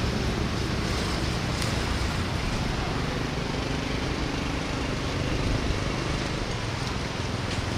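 Steady rumble of road traffic, with a faint engine drone rising out of it for a couple of seconds mid-way.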